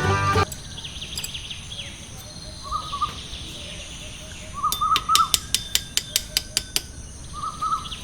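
Birds chirping and warbling in short phrases after background music cuts off about half a second in. Midway there is a quick run of sharp taps, about five a second for two seconds.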